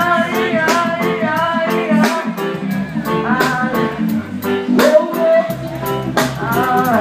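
Live band music with a drum kit keeping a steady beat and a singer's voice over it in short phrases.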